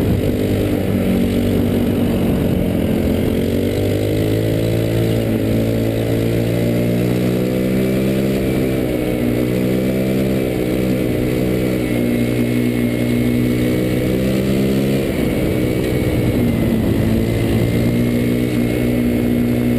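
Go-kart engine running under way, heard close up from a camera mounted on the kart's frame. Its pitch wavers up and down, drops briefly about fifteen seconds in, then picks up again.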